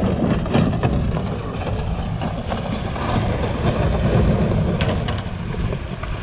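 Outboard motor of a small metal boat running at low speed as the boat pushes through broken floating ice and grounds on the bank, with irregular knocks and scraping of ice against the hull.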